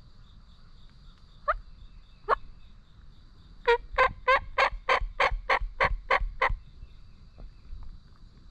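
Turkey call imitating a hen: two single notes, then a run of about ten evenly spaced yelps near the middle, signalling to nearby gobblers.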